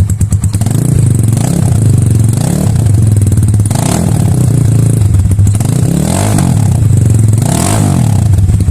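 Vortx 250 motorcycle engine running through a Chinese aftermarket exhaust with the dB killer taken out, so only the resonator quiets it. It runs loud and steady, with the throttle blipped about five times.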